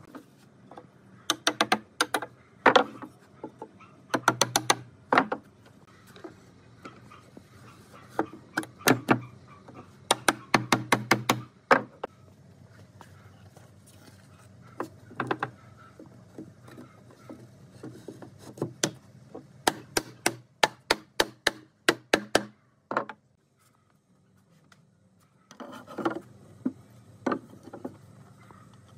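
Repeated sharp wooden knocks and taps, coming in quick runs of several strokes with short pauses between.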